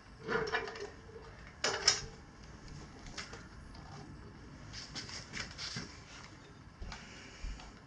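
Stiff knobby dirt-bike tire being forced by hand onto a lubricated wheel rim: two loud scraping strains with a short squeak in the first two seconds, then softer scuffs and clicks as the rubber is worked.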